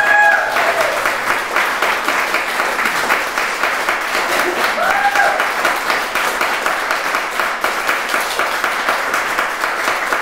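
Audience applauding steadily, with a brief voice calling out about five seconds in.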